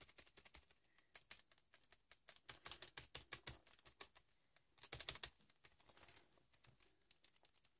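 Faint, quick tapping and rubbing on a paper journal page as paint is dabbed on by hand, thickest about three seconds in and again around five seconds.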